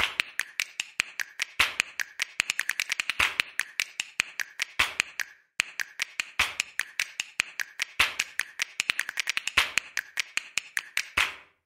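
Typing sound effect: quick, uneven key clicks, several a second, with a brief pause about halfway through.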